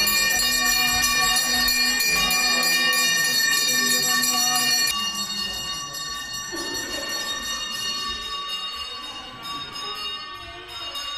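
Bells ringing with music, many overlapping ringing tones and a rapid jingling shimmer. The sound drops suddenly about five seconds in, and fainter ringing carries on.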